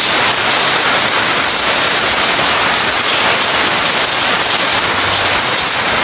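Heavy rain, a loud steady hiss that drowns out everything else.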